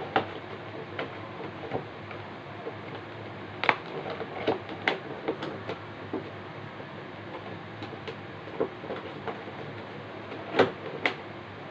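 Hands handling and unwrapping stiff clear plastic packaging: scattered crinkles and sharp clicks, the loudest a pair near the end, over a steady low hum.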